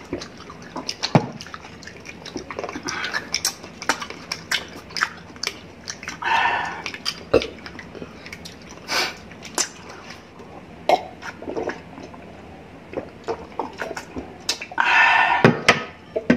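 Close-miked eating sounds: grapes being chewed, with many wet lip smacks and small clicks and occasional clinks of glasses and dishes. Two longer slurping sips, about six seconds in and near the end.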